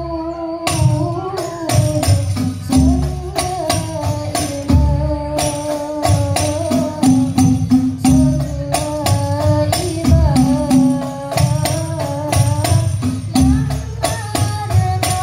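Banjari sholawat performance: female voices singing a flowing melody into microphones over a steady, driving rhythm of terbang frame drums, with deep bass strokes and sharp slaps.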